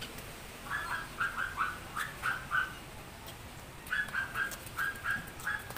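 Animal calls: short, high-pitched notes repeated in quick runs of three to five, several runs in a row.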